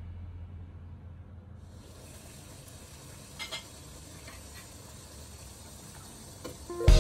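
Water boiling in a stainless steel pot: a faint, steady bubbling hiss, with a couple of light taps about halfway through. Background music fades out at the start and returns loudly right at the end.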